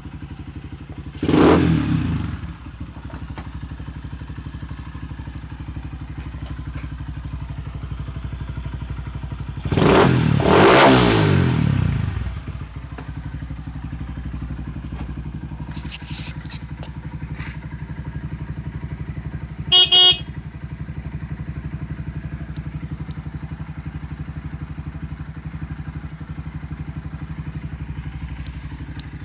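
Home-built dirt bike's Honda CB engine idling steadily, blipped once sharply early on and revved harder for about two seconds in the middle. A horn beeps briefly twice about two-thirds of the way through.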